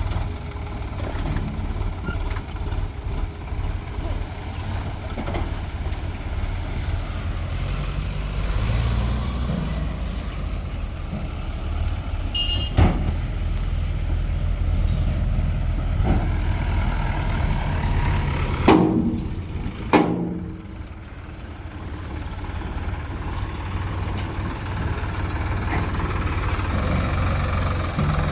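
Heavy diesel engines of a backhoe loader and a tractor running steadily, with a few sharp knocks about halfway through and again about two-thirds of the way in.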